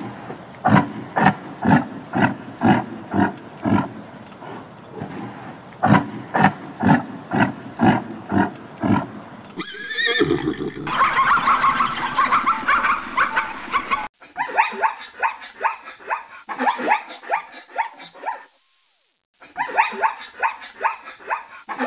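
Rhythmic animal grunting, about two to three pulses a second, for the first half, then from about ten seconds in a plains zebra's barking, braying call: bouts of quick yelping pulses, with a short break near the end.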